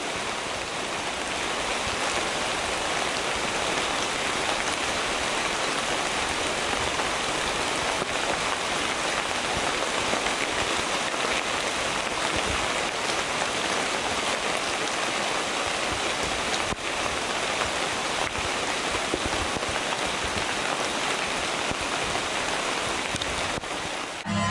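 Steady rain falling in rainforest, an even hiss with a few faint drop ticks.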